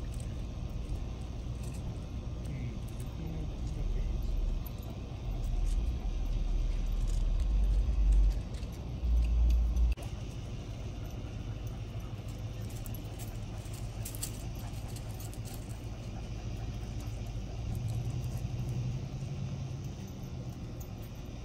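Wind rumbling on the microphone, gusting hardest from about four to ten seconds in and dropping off suddenly, with a few faint light clinks like dog collar tags.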